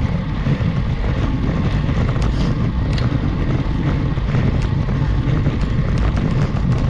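Wind rumbling steadily on a GoPro HERO 8's microphone while a road bike is ridden uphill, with scattered small clicks over it.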